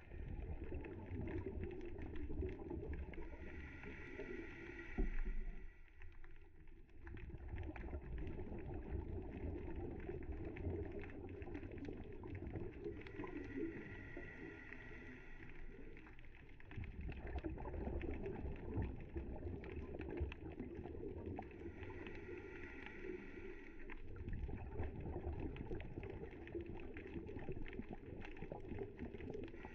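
Scuba regulator breathing heard underwater through the camera housing: slow breaths, each a hiss of inhalation followed by a longer rumbling burst of exhaled bubbles. A single thump about five seconds in.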